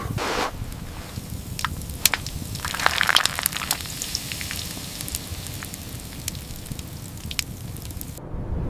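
Scattered sharp crackles and pops over a low steady rumble, with a denser run of crackling about three seconds in. The background changes abruptly near the end.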